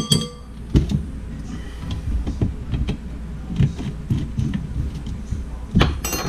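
A metal measuring spoon clinks against a glass mixing bowl at the start and again near the end, amid the knocks and clicks of a plastic lemon-juice bottle being handled. A steady low rumble runs underneath.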